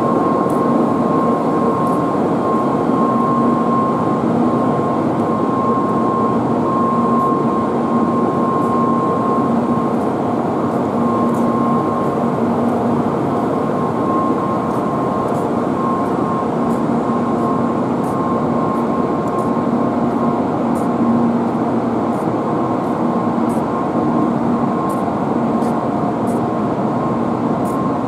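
Steady hum and noise of a Kyushu Shinkansen N700-series train at the platform, with a faint whine at a constant pitch that comes and goes.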